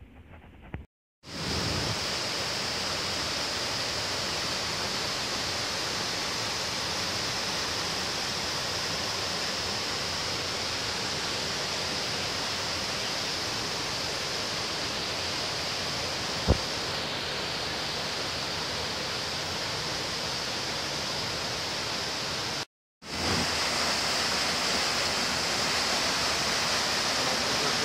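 Steady rushing of white water from a rocky river and waterfall, with two brief dropouts, one near the start and one near the end. A single sharp click comes a little past halfway.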